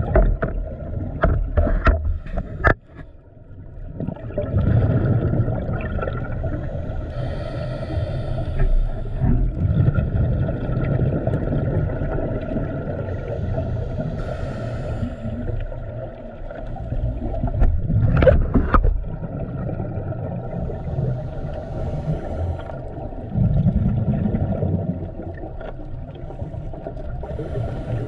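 Muffled underwater sound heard through a camera housing: a steady low rumble that swells every few seconds with the bubbles of scuba divers breathing out through their regulators, and a few sharp clicks near the start and again just past halfway.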